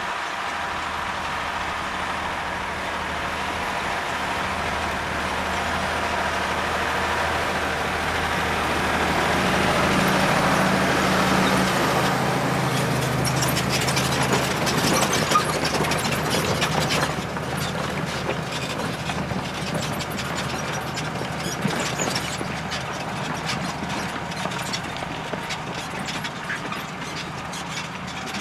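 Valtra tractor's diesel engine working under load while ploughing, growing louder to a peak about halfway through and then easing off. Rapid clattering and ticking run through the second half.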